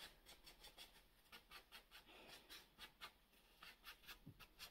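Very quiet, quick scratchy rubbing strokes of makeup being worked onto the skin, several a second, with near silence otherwise.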